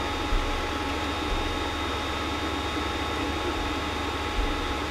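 Creality CR-10S Pro 3D printer running mid-print: a steady whirring with a few thin steady tones from its cooling fans and motors.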